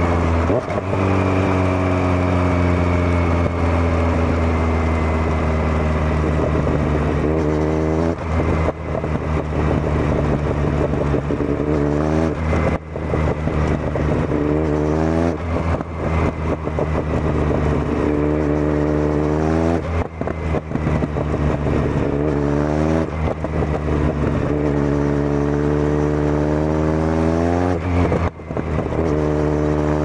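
Kawasaki Z900's inline-four engine through a Zard full exhaust system, accelerating and shifting repeatedly: the engine note rises in pitch, then dips briefly at each gear change before rising again.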